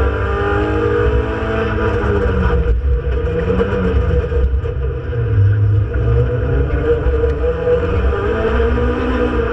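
Renault Clio Sport 182's 2.0-litre four-cylinder engine heard from inside the stripped race car's cabin under hard driving. The revs drop over the first few seconds, break off briefly about three seconds in, then climb and fall again with the throttle and gear changes.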